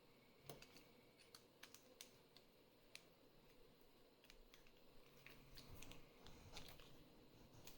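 Faint, scattered small clicks and taps of a padlock's metal parts being handled as it is reassembled, with some low rubbing from about four seconds in.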